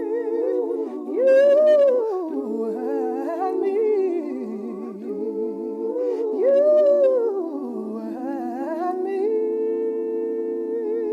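Wordless multi-part vocal harmony, hummed or sung on vowels with vibrato. A higher voice swoops up and back down twice over the chord, and near the end the voices settle onto a held final chord.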